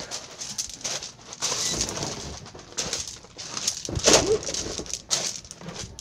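Footsteps and rustling of a handheld camera as a person walks, in uneven bursts, the loudest about four seconds in.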